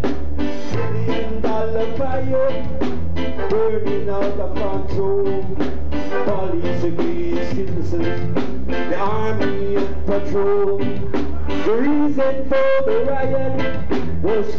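Live reggae band playing a steady drum beat and bass line, with a voice held and sliding in pitch over the music.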